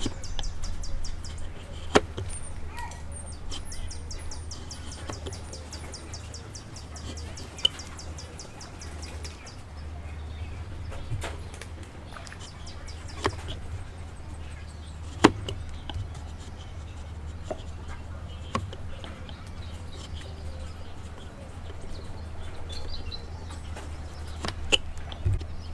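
Hand chisel pushed across a wooden joint, paring thin curled shavings. Sharp single clicks come every few seconds as the edge cuts through.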